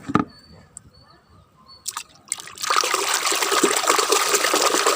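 A knock at the start, then, about two and a half seconds in, water starts running steadily.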